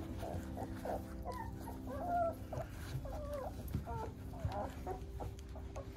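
Young Bernese Mountain Dog puppies whimpering while they eat: a string of short, wavering high squeaks and whines, most of them between about one and four seconds in.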